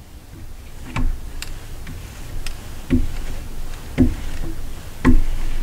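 A marker knocking and tapping against a glass lightboard as chart lines are drawn: a string of short taps, the strongest about a second apart, each with a faint low ring of the glass.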